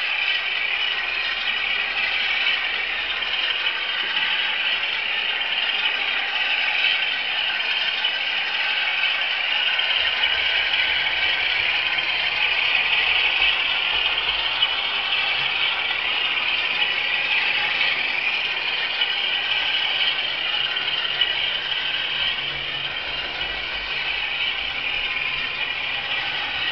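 Class 47 diesel engine sound (Sulzer twelve-cylinder) played by an SWD DCC sound chip through the small speaker of a Heljan OO-gauge model locomotive, running steadily. It sounds thin, with almost no bass.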